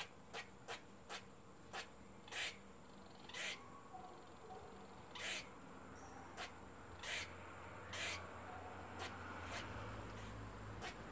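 Squirrel calling: a series of short, sharp chirps and clicks at uneven intervals, about fourteen in all, some very brief and some a little drawn out.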